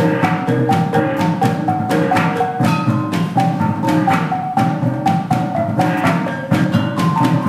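Percussion music for dancing: a quick repeating melody on tuned struck instruments, about four notes a second, over steady drumming.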